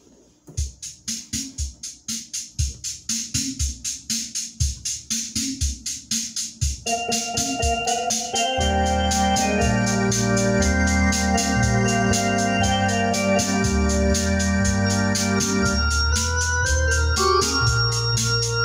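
Hammond Colonnade console organ: a steady beat of ticks and soft low thumps plays alone at first, sustained chords come in about seven seconds in, and a held bass and fuller chords join a second or so later.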